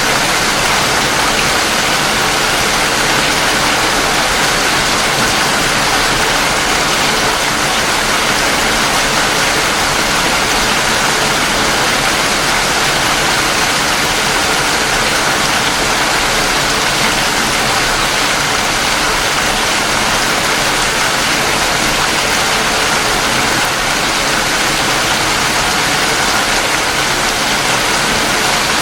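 Steady heavy rain falling, a constant dense hiss with no breaks.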